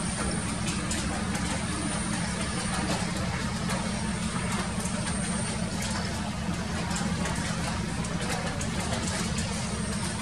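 Doosan excavator's diesel engine running steadily.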